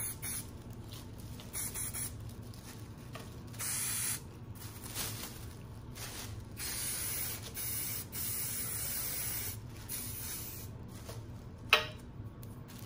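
Aerosol hairspray can sprayed in a series of short hissing bursts onto glittered decorations to fix the glitter. A single sharp click near the end.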